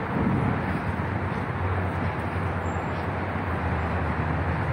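Steady road traffic noise: a continuous low hum of cars on a city street.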